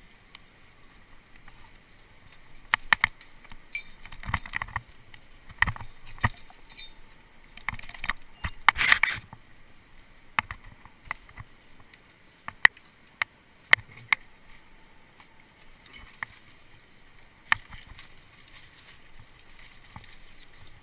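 Irregular clicks and knocks from a climber's metal gear and rope, mixed with the rustle of dry leaves and branches being pushed through. A louder, denser run of knocks comes about nine seconds in.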